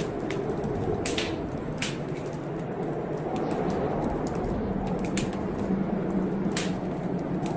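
Fireplace fire crackling, with irregular sharp pops and snaps over a steady rushing storm noise.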